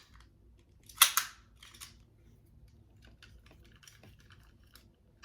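Small hard plastic clicks and taps from a children's toy cosmetic case being handled: a sharp double click about a second in, then a few fainter ticks.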